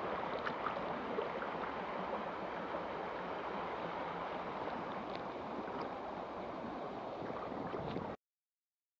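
Shallow river running over rocks in a riffle: a steady rush of water with a few faint ticks. It cuts off abruptly about eight seconds in.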